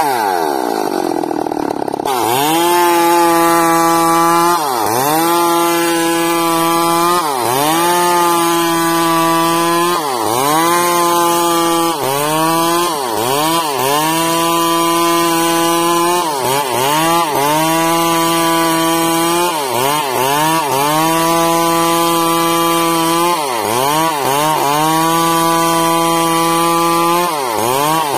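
Two-stroke chainsaw running near full throttle while ripping a bayur log lengthwise into rafters. Its engine pitch dips briefly and recovers every two to three seconds, about ten times.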